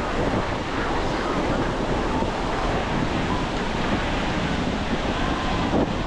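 Sea surf washing onto a beach with wind buffeting the microphone: a steady, dense rush of noise with no single break standing out.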